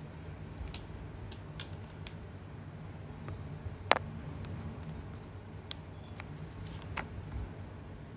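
Fingers handling a glasses frame while pressing a stick-on silicone nose pad onto it: scattered small clicks and taps, the sharpest about four seconds in and another near seven seconds, over a low steady hum.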